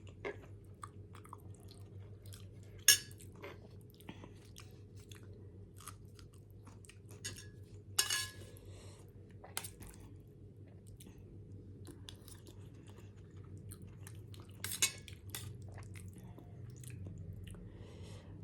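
Close-up eating sounds of Maggi instant noodles: chewing with many small mouth clicks, and three louder sharp clicks, about 3, 8 and 15 seconds in, over a low steady hum.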